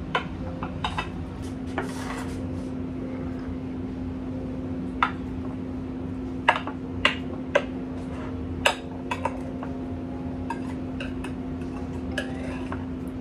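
A kitchen knife clinking and tapping against a glass cake plate while slicing a pound cake: about a dozen short, sharp clicks at irregular intervals, over a steady low hum.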